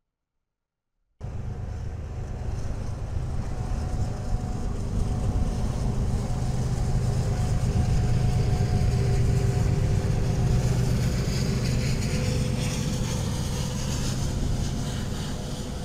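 Vehicle passing close by: a low rumble with a steady engine drone starts suddenly about a second in, swells to its loudest in the middle and eases off near the end.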